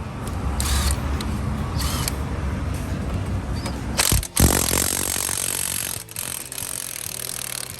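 Makita DTW190 18V cordless impact wrench running under the trigger, a loud continuous mechanical rattle. It cuts out briefly about four seconds in, starts again, and runs a little quieter in the last couple of seconds.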